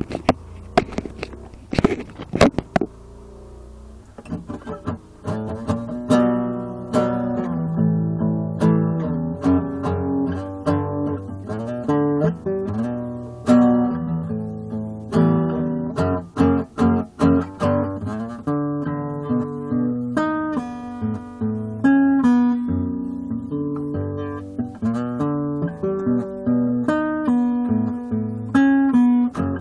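A few knocks of handling noise, then an acoustic guitar starts playing about four seconds in: picked notes and chords that run on steadily.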